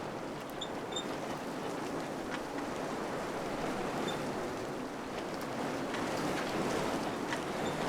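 Wind blowing steadily, a rushing noise that swells a little near the end, with a few faint, short, high peeps on top.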